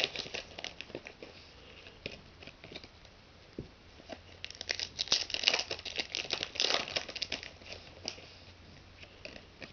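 Foil trading-card packs crinkling and tearing as they are opened, with cards handled between them. The crinkling comes in two busy spells, at the start and again from about four and a half to seven and a half seconds in.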